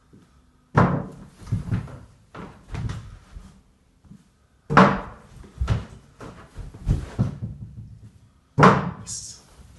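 A toilet roll thrown into a stainless steel cooking pot three times, each landing with a sudden loud knock about four seconds apart. Between the landings come smaller knocks and thumps as the roll is fetched out and carried back at speed.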